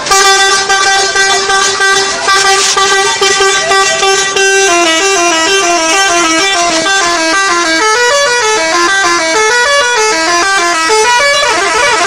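Loud 'telolet' multi-tone musical bus horn. It holds one note for about four and a half seconds, then plays a quick run of short notes stepping up and down in a tune.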